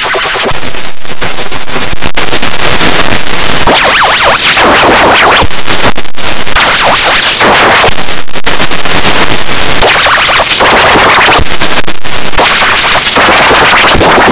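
Harsh, heavily distorted and clipped audio at near full volume, a dense wall of noise with brief dropouts every couple of seconds.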